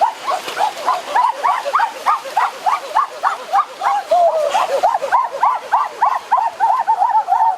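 An animal calling in a rapid, unbroken run of short rising-and-falling notes, about three or four a second.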